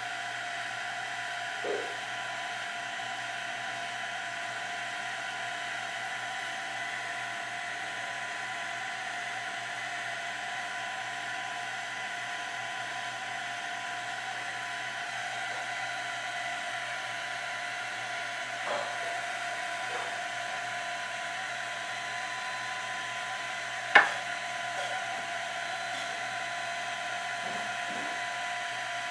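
Small electric fan motor whining steadily, with a few light knocks and one sharp click about three quarters of the way through.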